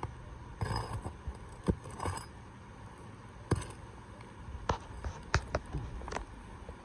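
Sharp knocks of a hammer on a roof snake, about six spread unevenly, freeing the nails under an asphalt shingle. Two short scrapes of the tool and shingles come in the first two seconds.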